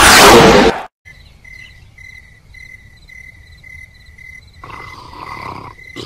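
Background music cuts off abruptly less than a second in. Then comes night ambience of crickets chirping in a steady, regular pattern, about three chirps a second.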